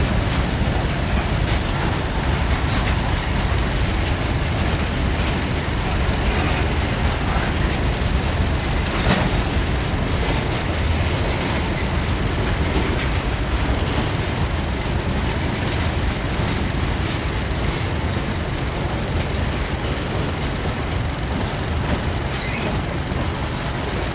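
Freight cars of a mixed freight train rolling past over a grade crossing: a steady rumble of steel wheels on rail, with an occasional faint click or clank.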